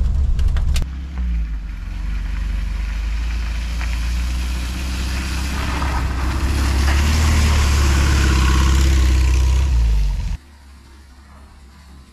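VW T2 camper van's engine pulling slowly in first gear on slippery mud, its low hum swelling louder and rougher through the middle. About ten seconds in the sound drops suddenly to a much quieter steady hum.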